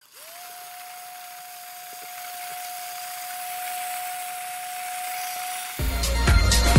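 Battery-powered mini garlic chopper running: its small motor spins up almost at once to a steady whine at one pitch, over a hiss of the blades chopping garlic cloves that grows louder. Near the end the whine stops and loud intro music begins.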